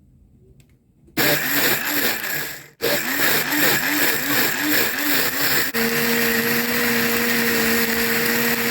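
Silvercrest blender motor switching on about a second in, cutting out briefly and starting again, its pitch rising and falling as it chops frozen pomegranate seeds and ice in water. Toward the end the pitch settles to a steady whine as the contents break down and spin freely.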